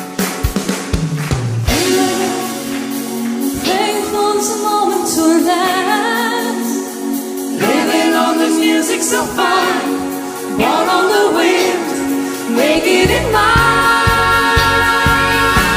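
Live pop music: a woman singing lead with backing singers in harmony. A drum beat runs in the first couple of seconds, then drops out to leave the voices over light accompaniment, and bass and beat come back in about 13 seconds in.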